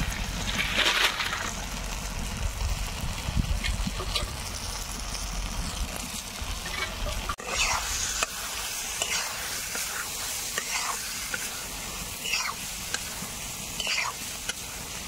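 Spatula stirring and scraping through a pan of spiced curry gravy with potatoes and fried brinjal being mixed in, over a steady sizzle. The scraping strokes come every second or two.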